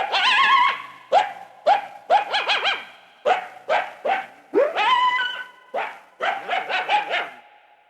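Coyote sound effect from the Big Thunder Mountain ride: a rapid string of yips and short howls, some sliding up in pitch and others warbling quickly, tailing off near the end.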